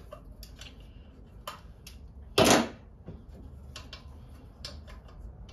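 Light metallic clicks and taps of hand tools and parts being handled on a Nissan RB20 engine's cylinder head, stripped of its camshafts. About two and a half seconds in comes one louder, short noisy clatter lasting under half a second.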